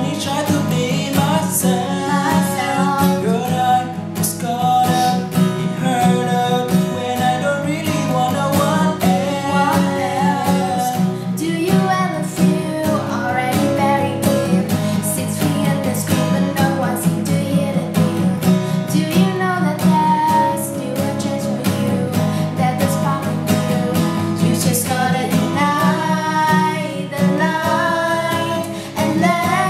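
Acoustic guitar strummed steadily while a voice sings a pop melody over it.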